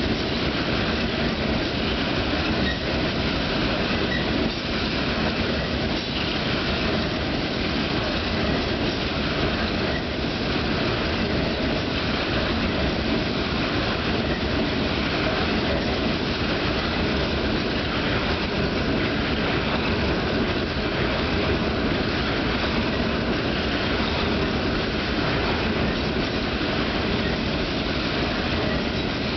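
Coal hopper cars of a freight train rolling past: a steady, unbroken noise of steel wheels running on the rails that holds an even level throughout.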